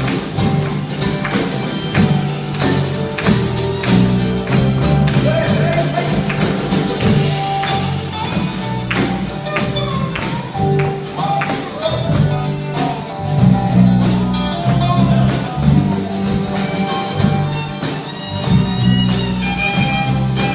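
Live band playing an instrumental passage: a moving bass line under steady rhythmic percussion, with melodic instrument lines on top.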